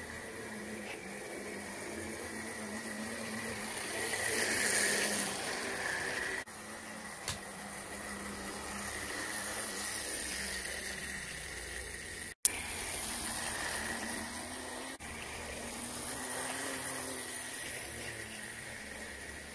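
LEGO Yellow Wind-Up Motor's clockwork gear train whirring steadily as the road-rail truck runs along plastic LEGO track. The whirr grows louder three times as the truck passes close by, and breaks off abruptly a few times.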